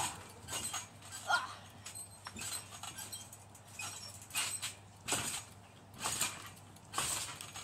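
Repeated bounces on a net-enclosed trampoline: a short whooshing landing noise from the mat and frame about once a second, with a brief rising squeak about a second in.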